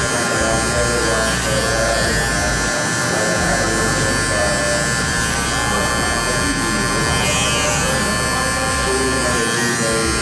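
Cordless hair clipper running steadily with a translucent plastic half guard on, fading short hair at the side of the head. Background music plays underneath.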